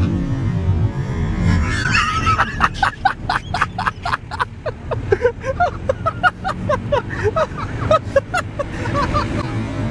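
Car interior with a steady engine and road rumble, overlaid from about two seconds in until near the end by a fast run of short pitched sounds, about five a second.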